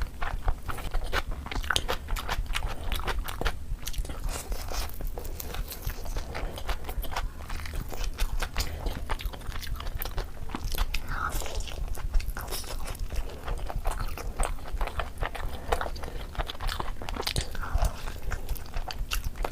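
A person biting and chewing crunchy food close to the microphone: a dense, continuous run of crisp crunches and mouth clicks.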